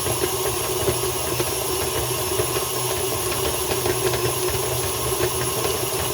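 Electric mixer running steadily while it kneads pizza dough, a constant motor hum with faint ticking.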